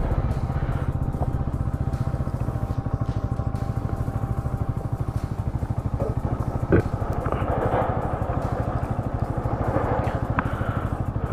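Bajaj Pulsar NS200's single-cylinder engine running at low revs, with even, rapid exhaust pulses. A single sharp knock sounds about two-thirds of the way through.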